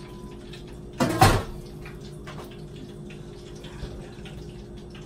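A large aluminum stockpot is set down on a gas stove with a single clank about a second in. Under it runs a steady low hum.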